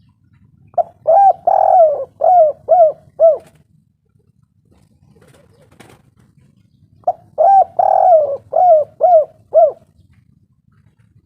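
Spotted dove cooing: two phrases of about six quick coos each, a couple of seconds apart. The first is about a second in and the second about seven seconds in.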